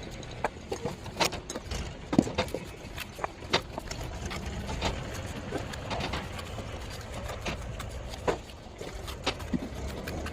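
Irregular sharp taps and knocks, loosely spaced with some close together, over a steady low hum.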